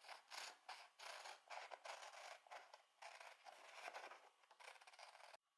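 Near silence with faint, quick scratching and rustling from small handwork on the paper signs, stopping abruptly near the end.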